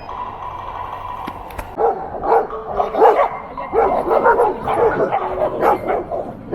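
A dog barking over and over, with short barks coming several a second from about two seconds in.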